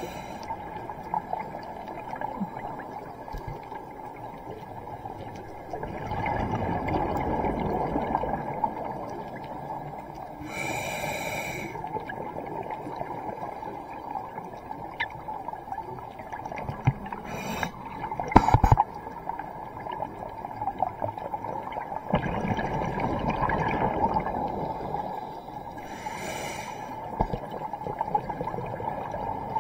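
Scuba diver breathing through a regulator underwater, in slow cycles: twice a long rush of exhaled bubbles, each followed by a shorter hiss of inhalation. A sharp knock comes a little past the middle.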